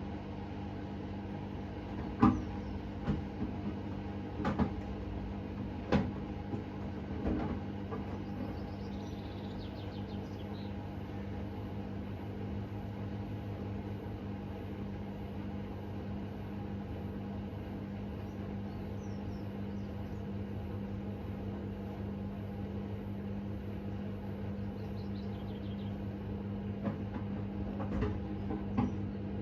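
Hoover H Wash 600 washing machine running, with a steady motor hum and a low, fast pulsing from the turning drum. There are several sharp knocks in the first few seconds and again near the end.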